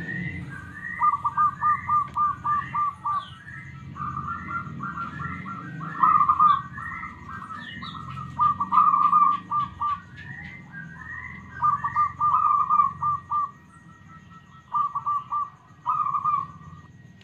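Zebra doves (perkutut) cooing: phrases of rapid, stuttering trilled coos, one burst after another, with a short higher rising chirp repeating behind them through the first half.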